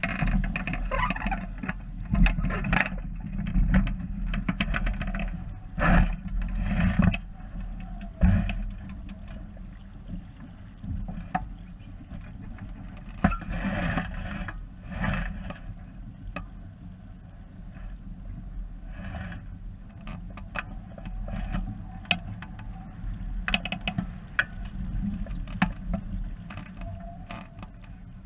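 Wind rumbling on the microphone and water splashing and rushing along a small sailboat's hull under sail, with scattered knocks and clicks.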